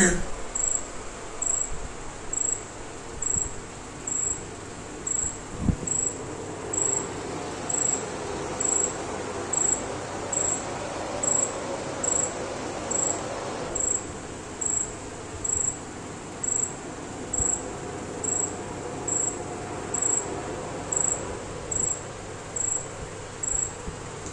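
An insect chirping steadily, a short high-pitched chirp repeated evenly a little more often than once a second, typical of a cricket.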